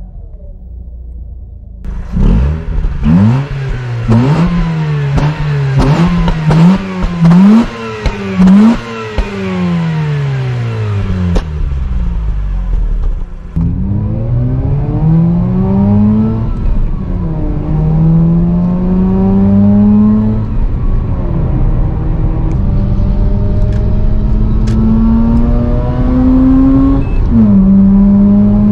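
Mazda RX-8's two-rotor Renesis rotary engine. It idles, then is revved hard in a string of quick stationary blips for about ten seconds. After that it pulls under acceleration, heard from inside the car, its pitch rising through each gear and dropping at each shift.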